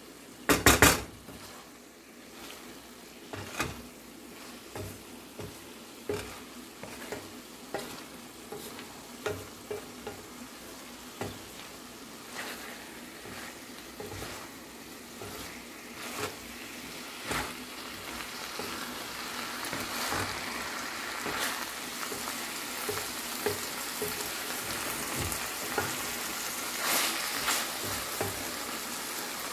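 Wooden spatula stirring and scraping a dry vegetable fry in a metal karahi, with irregular knocks against the pan and a loud knock just under a second in. Under it the frying sizzles, growing louder from about two-thirds of the way through as the fry browns on raised heat.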